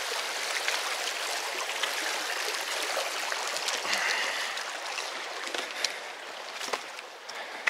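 Creek water running over rocks, a steady rush that grows quieter over the last couple of seconds, with a couple of sharp knocks after the middle.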